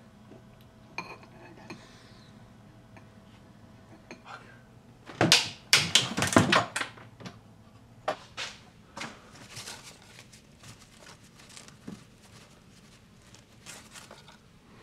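Clatter of dishes and cutlery being handled, with scattered clicks and knocks and a burst of loud clattering about five seconds in.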